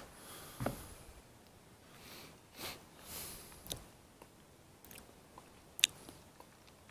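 Faint, irregular footsteps and scuffs of a hiker, with brief rustling and a sharp click about six seconds in.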